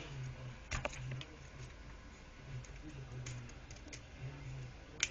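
Scattered light clicks and taps of small tool parts being handled, with a few close together about a second in and one sharp click near the end.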